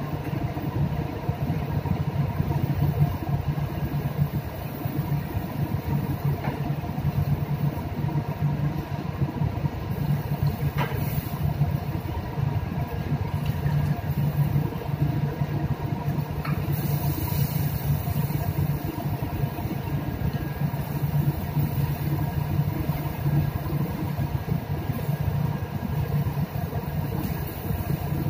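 Steady low machinery drone of a ship under way, heard in its galley, with several steady tones over a deep hum. A couple of light metallic clicks come through about halfway.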